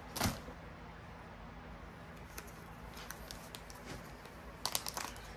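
Clear plastic packaging crinkling in the hands: a short rustle at the start, a few faint ticks, then a quick cluster of crinkles near the end.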